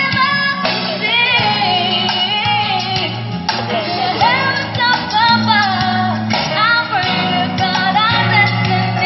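A song with a lead singer played loud through Kevler VRX932A line array speakers, with a steady bass line under the vocal melody.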